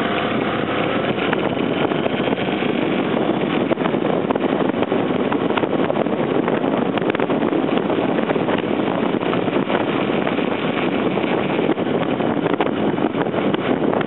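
BMW F800ST parallel-twin motorcycle riding at a steady road speed, its engine running under a rush of wind noise.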